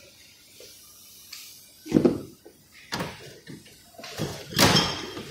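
Two sharp knocks about a second apart, followed near the end by a louder scraping, rustling noise close to the microphone.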